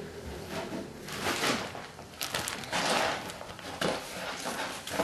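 Rustling and handling noise from a shopping bag being rummaged through, in several irregular bursts.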